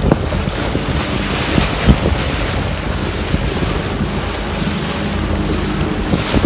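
Motorboat under way, its engine a faint steady hum beneath heavy wind buffeting the microphone and water rushing past the hull.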